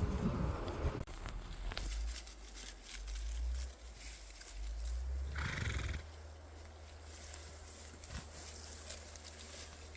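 A horse whinnies once, briefly, about halfway through, over a low rumble and scattered small clicks.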